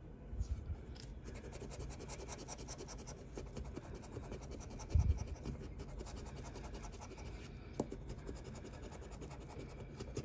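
A lottery scratch-off ticket being scratched, a quick steady run of short scraping strokes as the coating is rubbed off. There is a dull bump about five seconds in.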